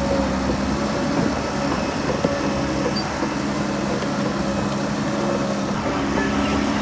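Heavy earthmoving machine's diesel engine running steadily, with a single light knock about two seconds in.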